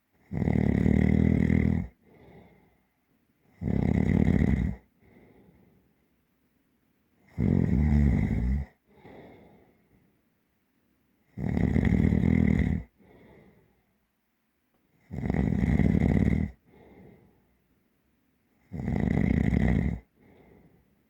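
Deep, heavy snoring: six loud snores in a slow, regular rhythm, about one every three and a half to four seconds, each followed by a softer, shorter breath.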